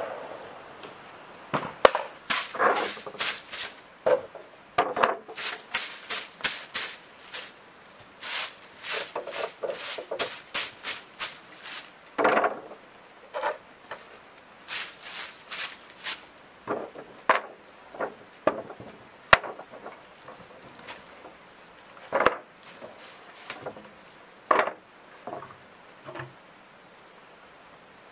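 Grass broom swept in quick, repeated strokes across wooden boards, followed by several sharp wooden knocks as the boards are lifted and set down on a concrete floor. A faint, steady, high insect drone runs beneath from about halfway through.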